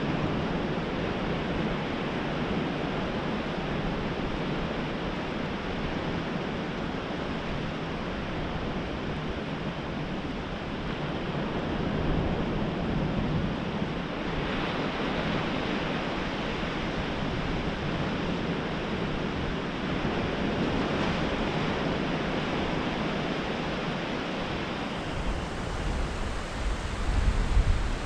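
Steady wash of small waves breaking on a flat, rocky beach, swelling and easing slightly. Near the end, wind starts buffeting the microphone with a low, uneven rumble.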